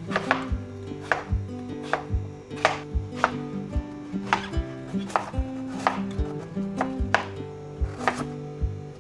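Knife chopping on a cutting board, evenly paced strokes about every two-thirds of a second, over soft background music.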